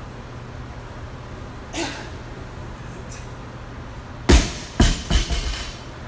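Loaded barbell with rubber bumper plates dropped from chest height onto a rubber gym floor: one heavy thud about four seconds in, then a few smaller bounces dying away over about a second and a half. A fainter short noise comes about two seconds in, as the bar is lifted.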